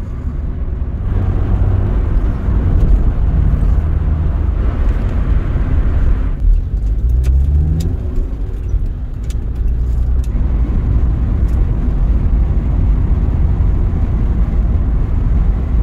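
Interior of a moving Rover car: steady engine and road noise, with the engine note rising about halfway through as the car accelerates.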